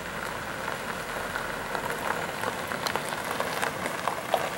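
Car tyres rolling over a gravel driveway: a steady crunching crackle of stones that grows denser and a little louder as the 2004 Saturn Ion draws nearer.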